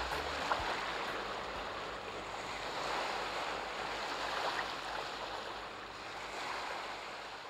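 Ocean surf washing, a steady rush of water that swells and eases every few seconds.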